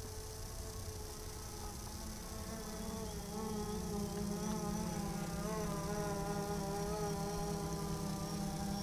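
DJI Phantom 3 quadcopter's propellers buzzing in flight, a whine whose pitch wavers slightly and that grows louder about three and a half seconds in as the drone comes closer.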